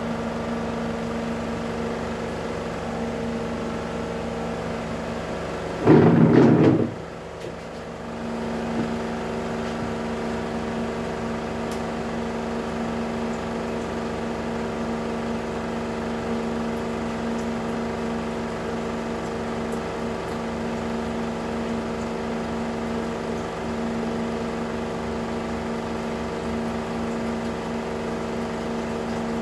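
Steady electric hum of a Melag Vacuclav autoclave running a test cycle. About six seconds in there is one loud burst of noise lasting about a second, after which the hum drops for a moment and then comes back.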